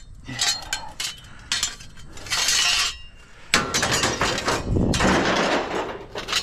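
Scrap metal clanking and clattering as pieces are handled and tossed onto a pile, with a sharp clang about three and a half seconds in followed by a couple of seconds of continuous rattling.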